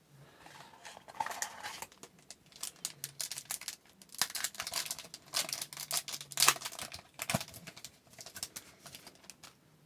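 Trading cards and a foil pack wrapper being handled close up: an irregular run of short slides, flicks and crinkles as the cards are shuffled through.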